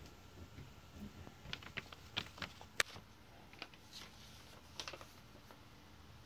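Quiet room tone with a scatter of small, sharp clicks and ticks. They bunch between about one and a half and five seconds in, and the sharpest comes near the middle.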